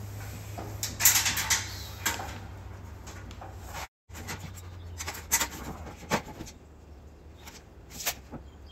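Scattered knocks and clatters from handling tools or materials inside a steel shipping container, over a low steady hum that fades past the middle; the sound cuts out for a moment about four seconds in.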